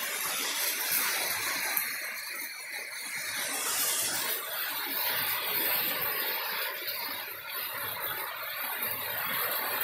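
Heavy rain pouring steadily onto a wet dirt road, an even hiss of splashing drops.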